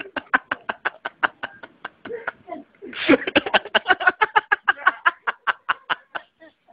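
Hearty laughter in quick rhythmic bursts of about five a second, with a louder fresh bout starting about three seconds in.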